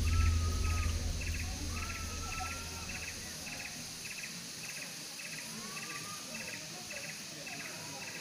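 Insects chirping steadily at about two chirps a second, with a bird giving a few drawn-out whistles over them. A low rumble fades out in the first few seconds.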